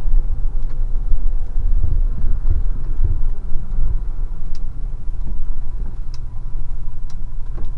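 Delivery truck's engine running, a steady low rumble, with a few faint clicks in the second half.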